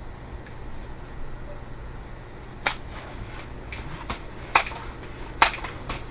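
Several sharp clicks and knocks at uneven intervals, starting about two and a half seconds in, over a low steady hum: targets being handled and set up on a shelf.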